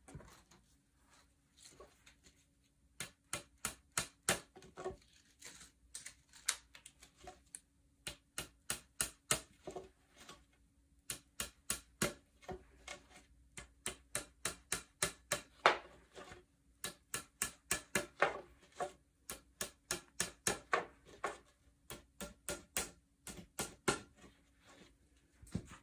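Hammer tapping wooden dowels into the holes of particleboard furniture panels: runs of quick, light strikes, several a second, with short pauses between runs.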